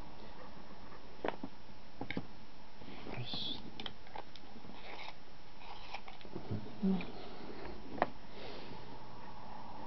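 Pencil work on drawing paper in a quiet room: a steady hiss with a few light, sharp clicks and taps and a short scratch, plus a brief low sound near the end.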